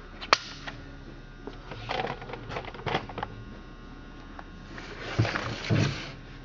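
A sharp click from the Stihl MS 460 Magnum chainsaw's chain brake being worked, followed by lighter clicks and rattles of the saw being handled, and two dull knocks near the end.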